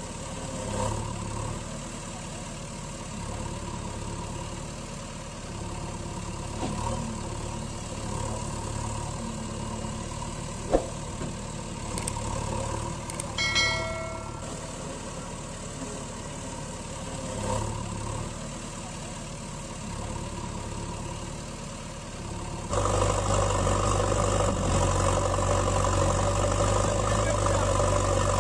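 Engine idling steadily, getting louder and fuller about 23 seconds in. A short bell-like notification chime sounds around the middle.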